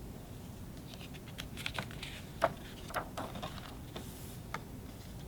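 Faint, scattered clicks and light rustles of paper: a picture book being handled, its page turned between lines of the story.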